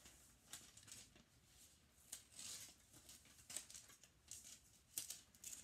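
Scissors snipping through wrapping paper, a faint run of irregular cuts with the paper rustling, the sharpest snip about five seconds in.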